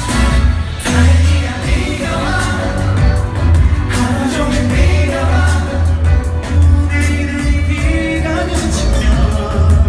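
Live pop music from a concert: male vocals sung over a band or backing track with a heavy, steady bass beat.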